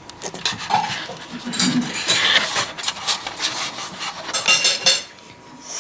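Packing paper rustling and crinkling in irregular handfuls as a paper-wrapped vegetable is handled and unwrapped in a cardboard box, busiest through the middle.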